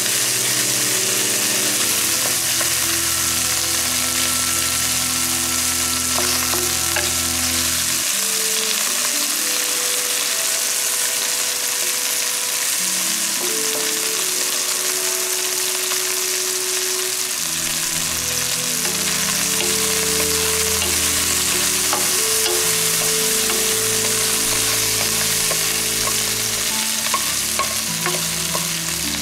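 Chicken pieces with garlic and chili sizzling steadily in oil in a nonstick wok, stirred and turned with a wooden spatula.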